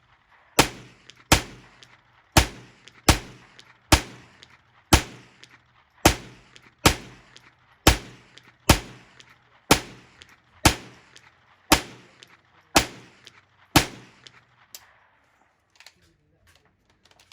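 Ruger 10/22 .22 LR semi-automatic rifle fired in steady, rapid single shots, about one shot every 0.7 to 1 second, around sixteen shots in all. The shooting stops about fourteen seconds in, and a few faint small clicks follow.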